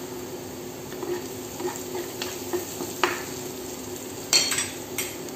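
Sliced onions sizzling in a frying pan over a steady low hum, with a metal spoon tapping and clinking several times; the loudest clinks come about four seconds in.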